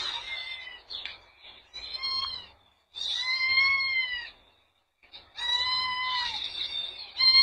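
A cat meowing over and over, about five long, drawn-out meows with short pauses between them: distress calls from a cat with its head stuck in a pipe.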